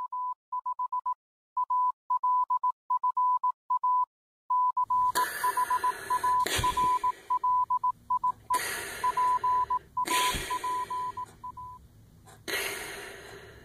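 Morse code beeps: a single high tone keyed on and off in dots and dashes. From about five seconds in, five gunshots sound over it at intervals of a second or two, each with a ringing tail.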